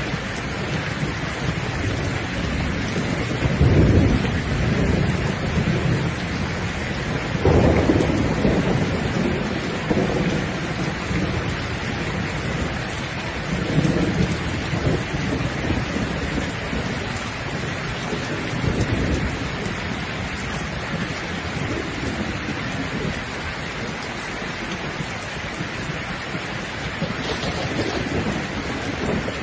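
Steady heavy rain with rumbles of thunder rolling in, the strongest about four and eight seconds in, then weaker ones.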